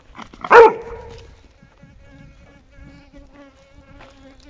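An Airedale terrier barks once, loud and short, about half a second in, while being teased with a stick in play. Then a flying insect buzzes steadily close by.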